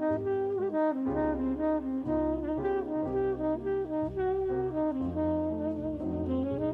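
Background music: a jazzy melody on brass over a walking bass line.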